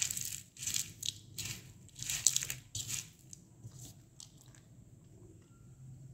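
Dry multani mitti (Fuller's earth clay) chunks crunching in a series of short, crisp crunches, about half a dozen in the first three seconds, thinning to small crackles by about four and a half seconds.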